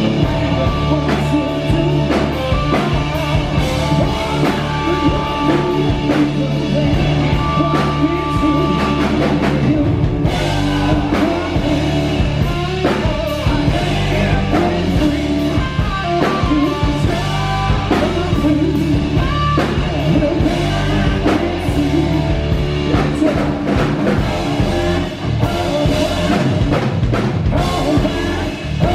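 Live rock band playing loud in a club: electric guitar, bass guitar and a drum kit, with singing over it.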